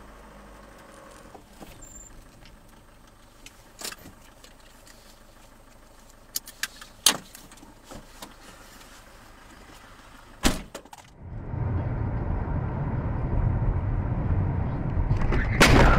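Quiet dashcam recording from inside a stopped car, with a few sharp clicks and knocks. About two-thirds through, this gives way to the loud, steady road and engine noise of a car driving at speed, with a sudden louder burst near the end.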